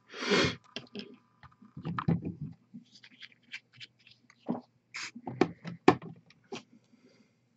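Small handling sounds at a painting desk: a brief rush of rustling noise at the start, then scattered light clicks, taps and a few dull knocks.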